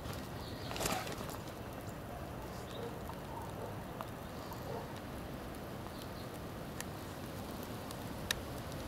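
Steady faint outdoor background noise, with a brief rustling bump from the camera being moved about a second in and a few isolated faint clicks later.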